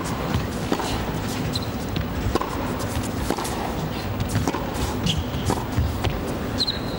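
Tennis rally: a serve, then racket strikes on the ball roughly once a second. Short tennis-shoe squeaks on the hard court come between the strikes.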